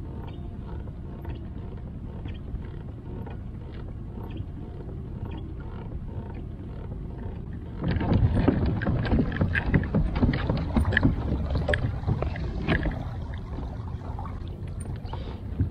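Water lapping and splashing against a kayak hull under way, with small knocks and clicks. It gets louder and choppier about eight seconds in, then eases off near the end.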